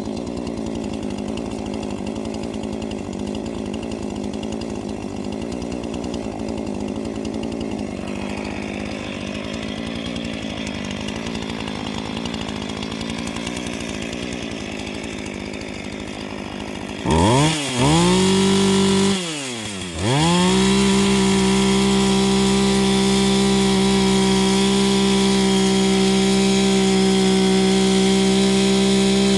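Chainsaw engine idling roughly. About seventeen seconds in it is revved up, drops back briefly, and then is held at high revs, running steady and loud.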